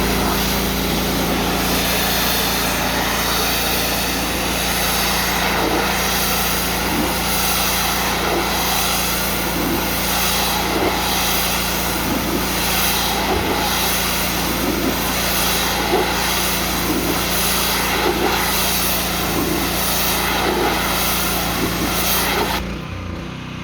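Hot-water gas pressure washer running under load: its Kohler engine runs steadily under the hiss of the high-pressure spray. The spray cuts off near the end and the engine note drops.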